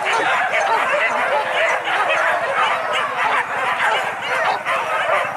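A pack of boar-hunting dogs barking together on the chase: a dense, unbroken chorus of many overlapping voices rising and falling in pitch.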